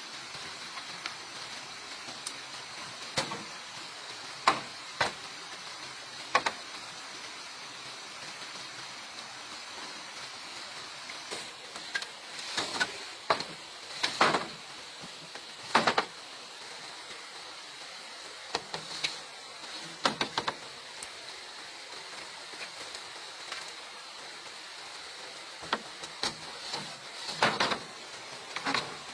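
Irregular knocks and clatters of bamboo being handled and worked by hand, some single sharp hits and some quick clusters, over a steady background hiss with a faint high steady tone.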